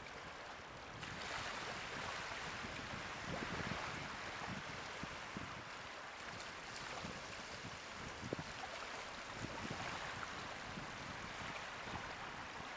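Caspian Sea waves washing in a steady hiss that swells about a second in and again near ten seconds, with wind rumbling on the microphone.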